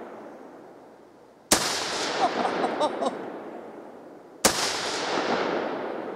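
Two rifle shots about three seconds apart, each followed by a long echo that fades away over a few seconds.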